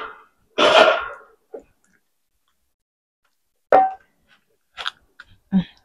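Two short, loud noisy bursts about a second apart at the start, then, after a pause, a few crisp clicks as dry tamarind pods are snapped and shelled by hand.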